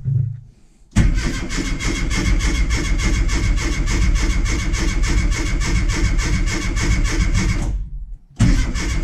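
1997 Rover Mini Cooper MPI's A-series engine cranked on the starter motor, turning over in an even pulsing rhythm for about seven seconds without catching. It is cranked again near the end. The fuel pump is not priming because it has lost its earth.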